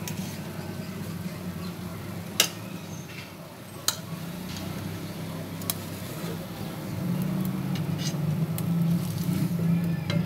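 A metal fork clicks against a nonstick frying pan a few times, sharpest about two and four seconds in, as fried toast is turned and lifted out of the pan. A steady low hum continues underneath.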